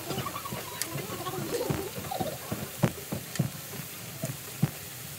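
Pork sizzling on a flat iron griddle, with a few sharp clicks of metal tongs striking the hot plate as the meat is turned. The loudest click comes about halfway through.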